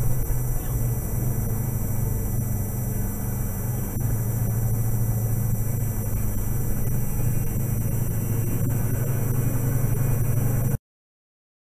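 Steady low engine and road rumble inside a moving vehicle's cab, picked up by the dash camera. It cuts off abruptly near the end.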